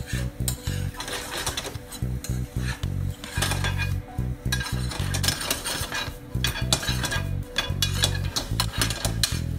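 Spatula scraping and clinking against a frying pan as minced chicken and peppers are stir-fried, with sizzling underneath. The pan is also shaken on the stove partway through.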